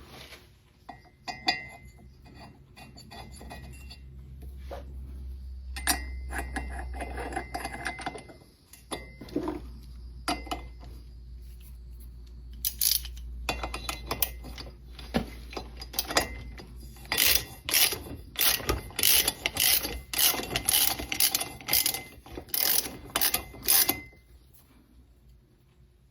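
Ratchet wrench clicking in short bursts while tightening a short-reach spark plug into a cylinder head, with handling noise of the tool and plug before it.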